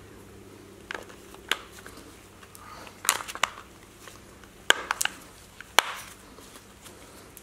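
Plastic clicks, taps and rustling as a new air filter is handled and pressed into place on a chainsaw's plastic filter housing by gloved hands, with a few sharper snaps, the loudest about two thirds of the way in. A faint steady hum runs underneath.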